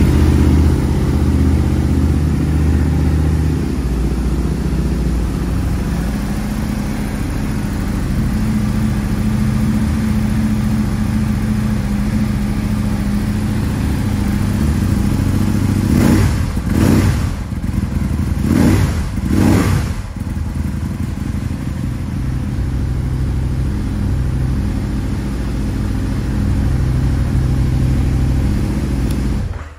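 2008 Aprilia Tuono Factory's 1000 cc V-twin engine running just after a start: a faster idle settles lower about four seconds in. Three quick throttle blips come around the middle, then steady idle, and the sound cuts off abruptly at the very end.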